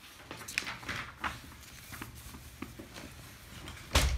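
Sheets of paper rustling and being handled, with scattered light clicks, then a louder thump and rustle near the end.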